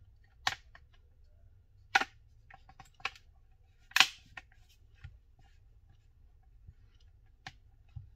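Sharp plastic clicks of a Samsung Tab S2's back cover snapping onto the frame as its edges are pressed: several irregular clicks, the loudest about two and four seconds in.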